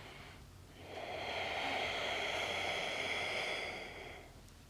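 A woman's long, audible breath, one smooth rush of air about three and a half seconds long that swells and then fades.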